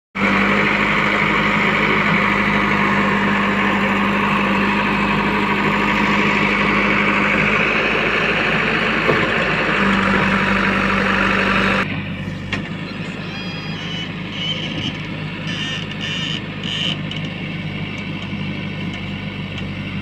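JCB 3DX backhoe loader's diesel engine running under load as the backhoe digs and dumps soil, a steady loud drone. About twelve seconds in it drops suddenly in level and sounds farther off.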